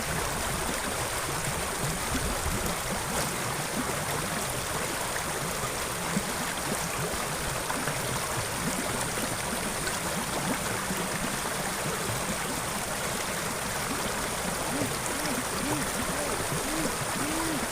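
Water running steadily along a ditch, a constant rushing sound.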